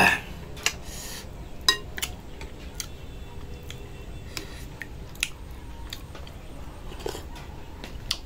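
Eating utensils clinking and tapping against a bowl as food is picked up, a scattering of light, separate clicks.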